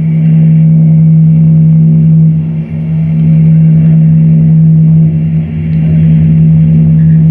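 Loud, steady low electronic drone from a live experimental performance: one deep held tone with a buzzing stack of overtones. It dips briefly twice, then comes back.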